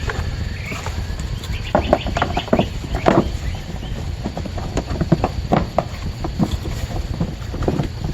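Light plastic clicks and knocks from handling the parts of a GMT400 HVAC box, in scattered groups over a steady low hum.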